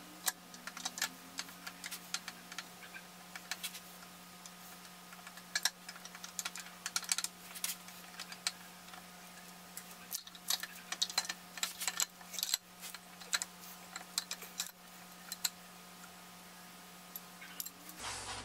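Irregular small metal clicks and clinks as the camshaft sprocket and timing chain of an LS-series V8 are handled and the camshaft is worked out of the block by hand.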